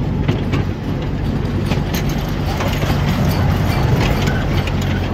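Small park train running: a steady engine hum with scattered clacks and rattles from the open carriages.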